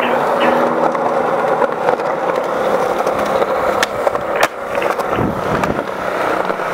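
Skateboard wheels rolling steadily on smooth concrete, with a sharp tail pop about four seconds in and the clack of the board landing just over half a second later.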